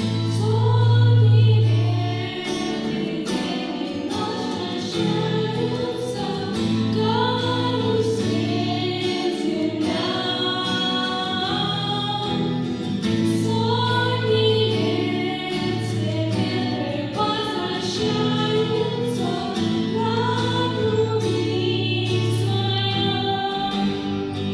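A song: singing voices carrying a melody over a backing band, with long held bass notes and a steady beat.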